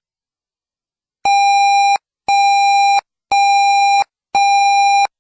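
Emergency Alert System alert beeps: four identical buzzy electronic beeps of one steady mid pitch, about one a second, starting after a second of silence. They signal that an emergency alert is being activated.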